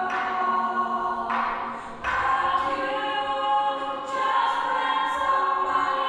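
Youth choir singing a cappella in held, sustained chords, with a new phrase starting about two seconds in.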